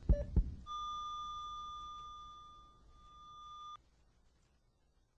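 Sound effect of a last heartbeat, a quick double thump, followed by a heart monitor's flatline: one steady high beep about three seconds long that cuts off suddenly, marking death.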